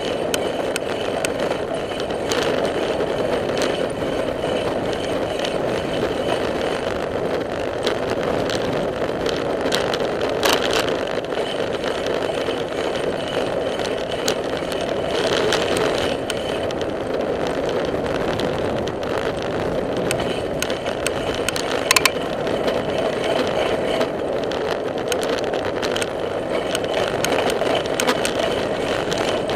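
Bicycle ridden on an asphalt path: a steady rumble of tyres and wind, with frequent small rattles and clicks and a sharper knock about 22 seconds in.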